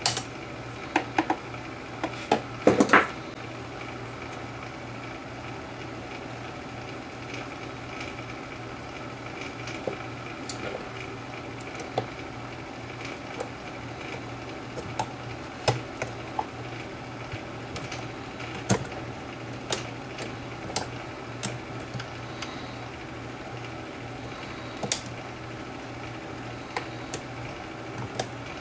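Small metal parts and needle-nose pliers clicking and tapping as a lever assembly and washers are refitted into a Sony TC-200 reel-to-reel deck's transport mechanism. A quick cluster of sharp clicks comes in the first three seconds, then single clicks every second or two, over a steady low hum.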